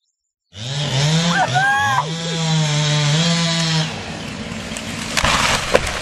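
Chainsaw engine running at high revs, its pitch dipping and rising, then easing off about four seconds in; a brief harsh noisy burst follows a little after five seconds.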